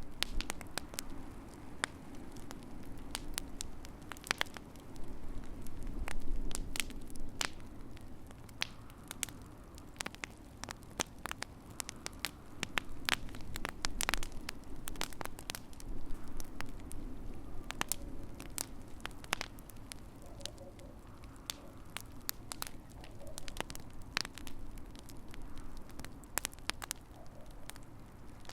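Wood fire crackling in a fireplace: irregular sharp pops and snaps, some in quick clusters, over a low steady rumble.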